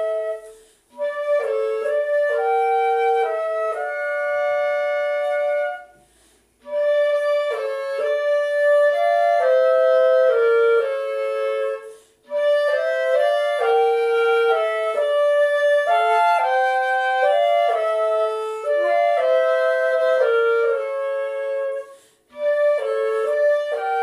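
A flute and a clarinet playing a tune together as a duet, in phrases broken by short pauses.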